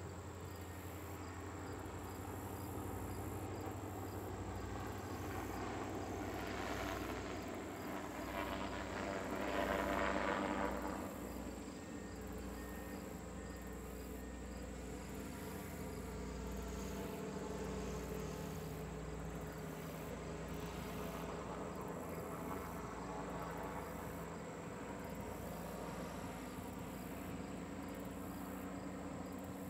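Propeller engines of a Goodyear Zeppelin NT airship droning steadily as it flies low overhead, growing louder for a few seconds about ten seconds in as it passes closest. Faint insect chirping carries on underneath.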